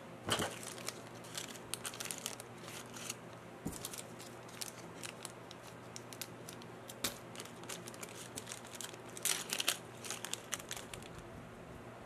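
Small clear plastic bag of servo parts being handled and opened, crinkling in short, irregular bursts.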